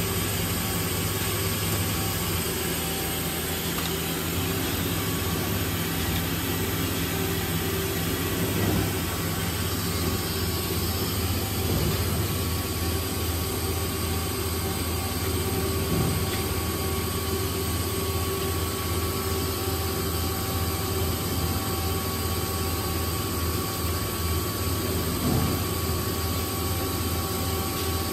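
Steady hum of running machinery in a machine shop, with several steady tones held throughout and a few faint knocks.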